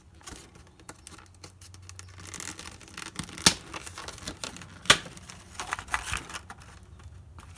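Packaging of a headlight restoration kit being opened and handled: rustling and tearing with scattered clicks, and two sharper snaps near the middle.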